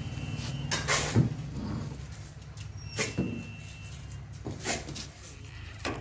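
Refuelling a diesel tractor at a fuel-pump nozzle: a steady low hum runs under several sharp clicks and knocks as the metal nozzle is handled and pulled out of the tank's filler neck.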